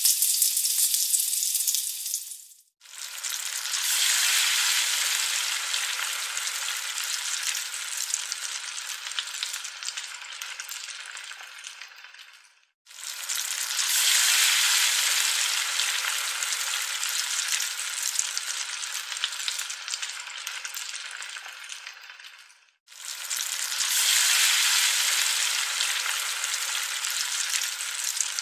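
Battered bitter gourd strips deep-frying in hot oil in a wok: a steady sizzling hiss. It cuts out briefly three times, about ten seconds apart.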